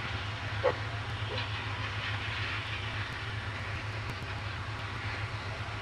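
Steady low engine drone with a background hiss, and a brief faint sound about two-thirds of a second in.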